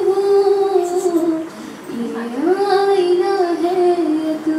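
A young woman singing a slow melody solo into a handheld microphone, holding long, gliding notes. The line drops to a brief quieter low note about two seconds in, then rises and carries on.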